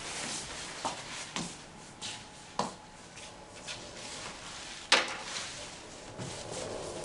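A few light knocks and clicks of small objects being handled and set down on a tabletop, with faint scraping between them; the sharpest knock comes about five seconds in.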